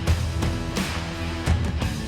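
Background music: rock with electric guitar and a steady drum beat.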